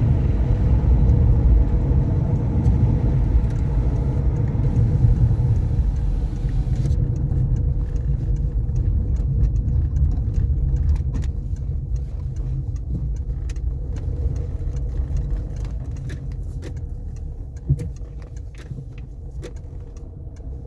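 Peugeot 407 SW on the road, a steady rumble of engine and tyres that eases off in the second half. No knock comes from the front suspension now that the CV joint and boot are new. There is one short thump near the end.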